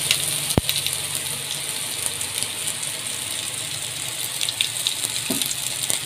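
Quesabirrias frying in a skillet: a steady sizzle as the tortillas brown in the fat, with one sharp knock of the spatula against the pan about half a second in.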